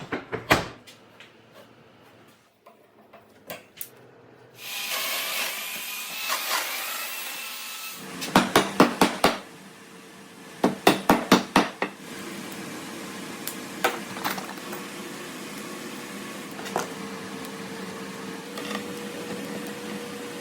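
Woodworking shop sounds as knockdown connectors are set up in wooden bed parts. Scattered clicks and handling knocks come first, then a power tool runs for about three seconds. Two quick series of six or seven hammer or mallet taps follow, then a steady hum.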